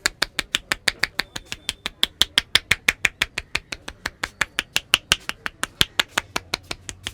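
Rapid percussive head-massage strokes striking the head, a steady train of sharp pats at about six a second.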